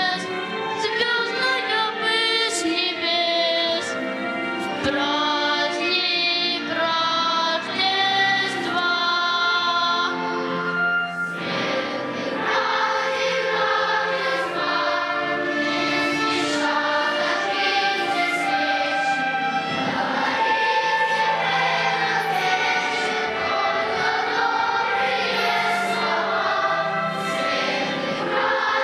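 Children's choir singing a song with musical accompaniment, the sound growing fuller from about eleven seconds in.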